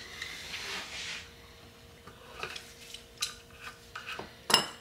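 A metal tool scrapes and clicks against a threaded steel wheel-bearing retainer as it is unscrewed from an aluminium motorcycle wheel hub. A few light metallic clicks follow, then a louder ringing metal clink near the end.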